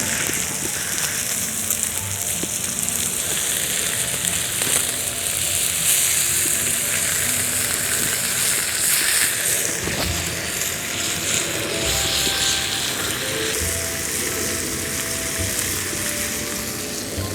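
Pork belly sizzling steadily on a hot stone slab over a wood fire, with faint background music underneath.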